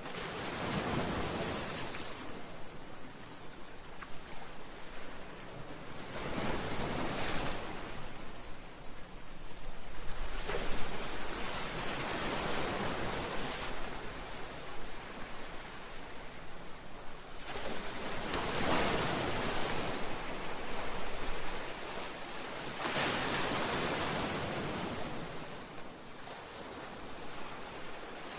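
Sea waves breaking against a seawall and breakwater, surging in every few seconds and washing back, with the sharpest crash about eleven seconds in.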